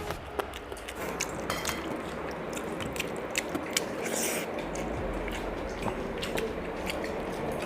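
People eating pakhala, fermented water rice, with fried sides: chewing and wet mashing, with many small sharp clicks scattered throughout.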